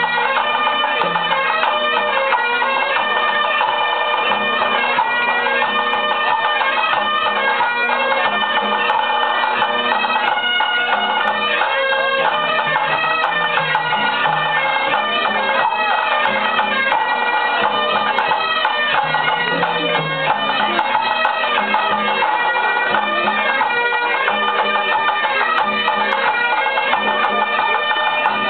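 Bagpipes playing a dance tune, the melody moving over steady, unbroken drones.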